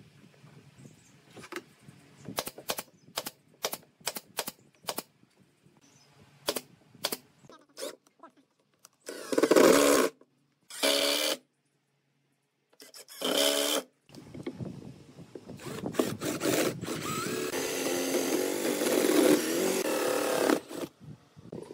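A series of irregular sharp clicks and taps as wooden parts are handled, then a cordless drill driving a screw into pine in a few short bursts. After that a drill runs steadily for several seconds, boring a hole into a wooden block.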